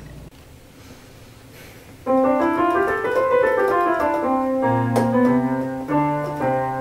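Piano playing a melody. The notes start about two seconds in, lower bass notes join partway through, and the playing stops near the end.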